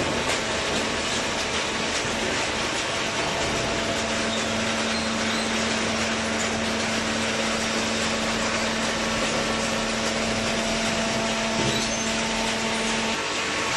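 Semi-automatic horizontal cardboard baler running: a steady mechanical hum from its hydraulic power unit, with a steady low tone that comes in a few seconds in and drops out near the end.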